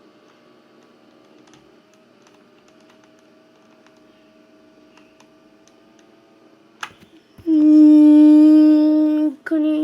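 Faint steady hum with scattered light ticks, then about seven and a half seconds in a loud, steady, unwavering buzzer tone sounds for about two seconds, stops briefly, and starts again near the end.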